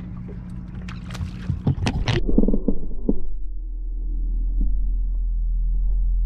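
A small boat's outboard engine idling with a steady low hum. Sharp clicks and knocks come over it for the first two seconds, then the sound goes muffled with a few soft thuds.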